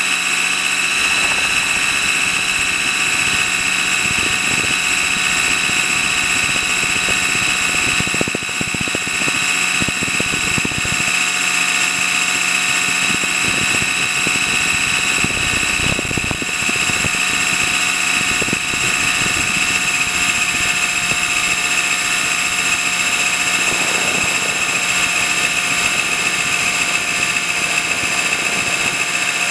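Trex 600 RC helicopter heard from on board: a steady high-pitched whine from its drive and rotors. A few low buffeting gusts come through about a third of the way in and again near the middle.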